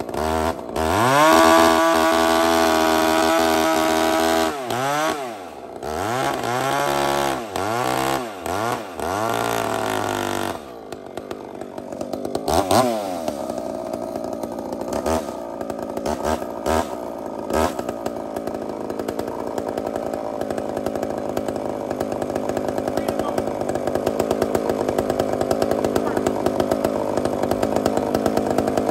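Two-stroke chainsaw running at full throttle with a steady high pitch, then revved up and down five or six times and let drop back. From about halfway on, a large chainsaw with a four-foot bar idles steadily, after one short blip of the throttle.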